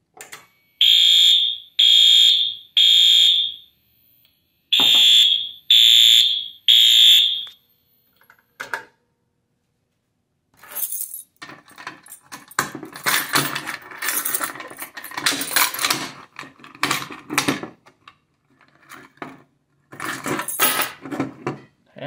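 Wheelock AS-24110W fire alarm horn sounding the temporal-three evacuation pattern: three loud blasts, a pause, then three more, after which it stops. This is the panel's alarm signal for the activated pull station. Later come irregular clattering and rattling, from the reset key being worked in the pull station.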